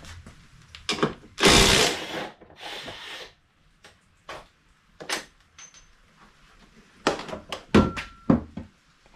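A cordless power tool runs in two short bursts, backing out the bolts that hold the stock plastic front bumper on. Near the end comes a cluster of knocks and clatter as the plastic bumper is pulled free of the truck.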